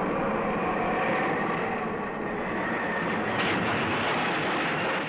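Steady, dense roar of storm wind, with a brief brighter hissing surge about three and a half seconds in.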